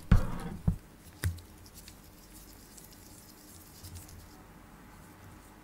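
Robur watch-crystal press being released, letting the compressed acrylic watch crystal expand and seat in the case: three sharp knocks in the first second and a half, the first the loudest, then faint handling.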